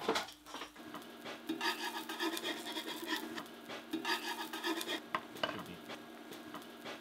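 Metal spatula scraping across a steel plate as a fried egg is pried up and lifted off, with the egg sizzling faintly and a steady low hum underneath.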